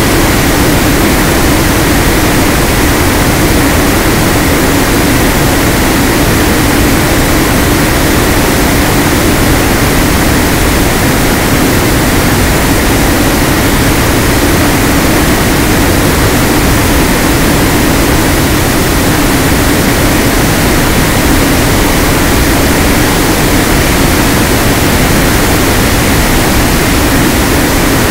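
Loud steady hiss with a low steady drone underneath: the audio channel of an analog 5.8 GHz FPV video downlink from an aircraft in flight, motor and wind noise mixed with radio-link static.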